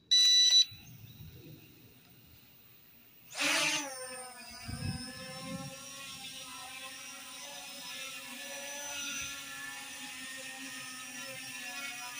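A short electronic beep, then about three seconds later the motors of a Huanchenda H23-De-01 quadcopter drone spin up. It lifts off and hovers, its propellers giving a steady, slightly wavering whine.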